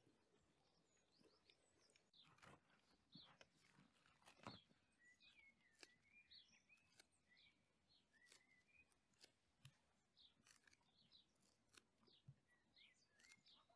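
Very faint crackling and tearing of crusty flatbread being torn apart by hand, a string of short crisp crackles, with faint birds chirping behind.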